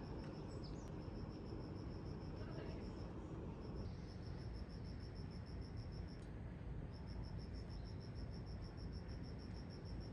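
A cricket chirping: a high trill of rapid, evenly spaced pulses that breaks off briefly a couple of times, over a steady low background hum.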